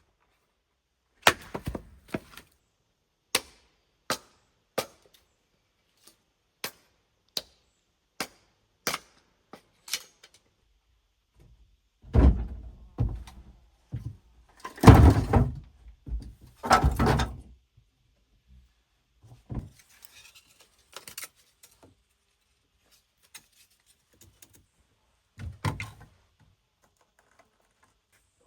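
A series of irregular sharp knocks and thuds, with a run of heavier, longer clattering thumps about halfway through, in a small room.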